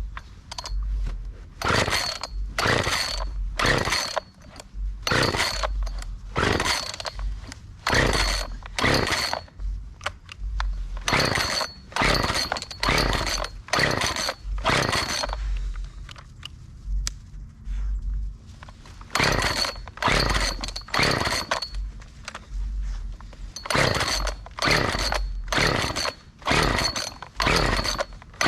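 Husqvarna 36 two-stroke chainsaw being pull-started on choke: the recoil starter is yanked over and over, about once a second in runs, with a pause of a few seconds past the middle, the engine turning over without settling into a steady run.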